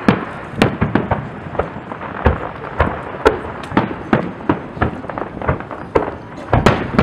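Aerial firework shells bursting in a rapid, irregular string of sharp booms, about three a second.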